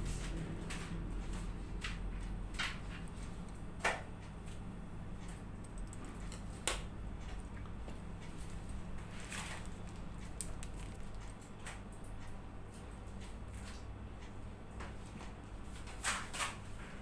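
A steady low electrical hum, with scattered short clicks and taps from hands handling cake-decorating tools and the turntable, about nine in all and a quick pair near the end.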